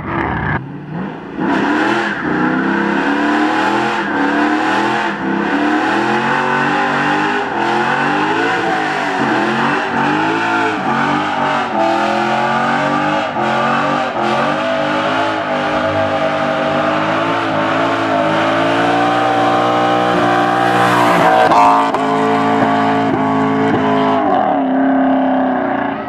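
Car engine revving hard and repeatedly, its pitch rising and falling, during a burnout as the rear tires spin and squeal on the asphalt. The sound fades near the end.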